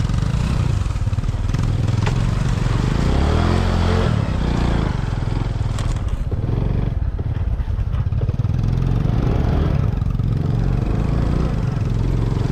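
Motorcycle engine running while being ridden, a steady low rumble with rattling. Its pitch rises and falls a few seconds in.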